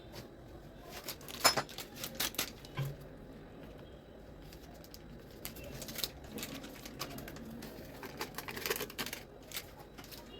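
Scattered clicks and knocks from handling food and utensils during kitchen prep, coming in two flurries: one about a second in and another near the end.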